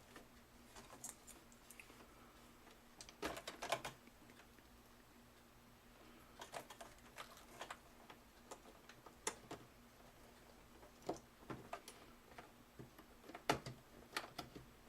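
Faint, irregular clicks and light knocks of power-supply cables and plastic connectors being handled and pushed into place inside a computer case, with a short cluster about three seconds in and more scattered through the rest.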